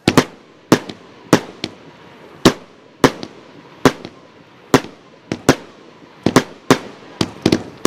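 Royal Fireworks 'Ano's Heaven Four' consumer fireworks cake firing: a quick, irregular string of sharp bangs, about two to three a second, as its shots go up and break into gold stars.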